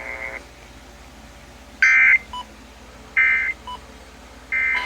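Emergency Alert System end-of-message data bursts: three short, raspy digital squawks about a second apart, each a third of a second long, which mark the end of the relayed alert. Just before them, a steady tone cuts off shortly after the start.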